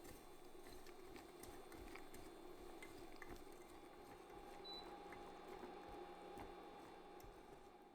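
Faint bubbling of liquid heating in a pan, with small irregular ticks and pops.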